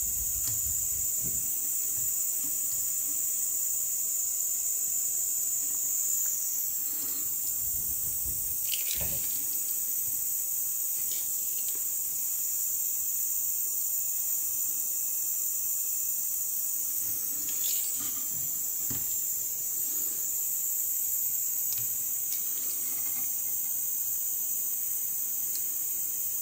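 Steady high-pitched hiss, with a few faint taps and knocks from hands working a soldering iron and wires at a transformer's terminals.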